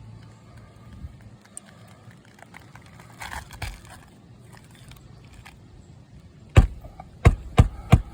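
Roofing hammer driving nails into roof shingles: about four sharp blows in quick succession near the end, after a few seconds of light scraping.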